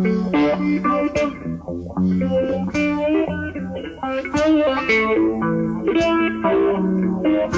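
Electric guitar playing a blues-rock lead, quick runs of single notes over held low notes.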